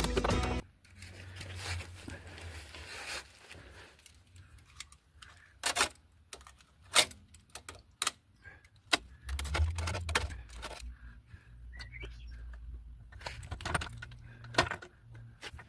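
Irregular metallic clinks and clanks of tools and metal parts being handled during exhaust work, over a low hum.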